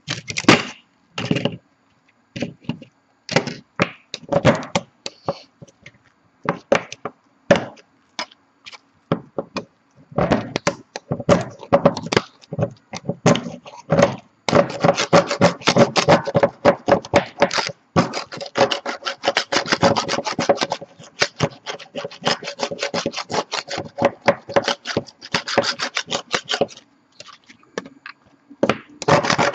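A metal scraper prying and scraping 3D-printed plastic support off a print and its perforated print bed. Scattered scrapes and knocks at first, then from about halfway a fast, nearly unbroken run of short scraping strokes.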